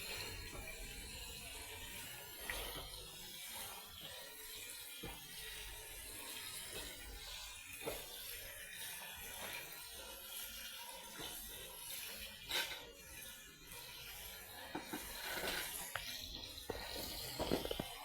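Water running and splashing, with a few scattered knocks of kitchen items.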